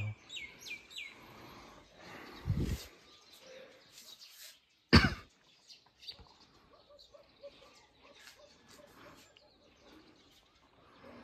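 Birds chirping, with a few quick falling chirps at the start, then a person's single loud cough about five seconds in, and a low thump a couple of seconds before it.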